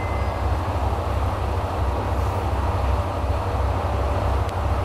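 Diesel railcars idling at a station platform: a steady, pulsing low engine rumble.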